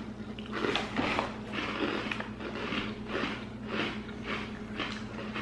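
Chewing of thin, very crispy chocolate chip cookie biscuits: a dry crunch about twice a second.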